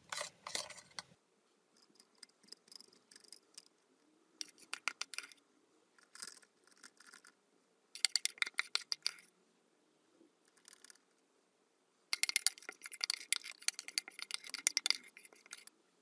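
A metal spoon scraping and clicking against glass in short bursts as it scoops thick whipped dalgona coffee foam, with the longest, densest run of scraping near the end.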